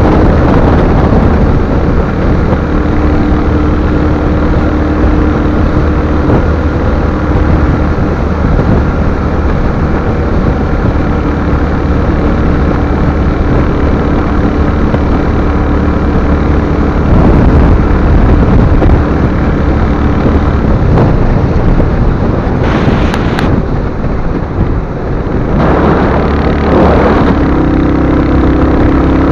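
Royal Enfield Hunter 350's single-cylinder engine running steadily while the motorcycle is ridden, with heavy wind rush on the microphone.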